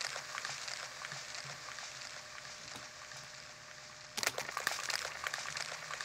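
Raw, unprocessed field recording from a skate-park session played back dry: a gritty crackling texture with scattered small clicks that slowly dies down. A fresh, louder burst of crackle comes about four seconds in.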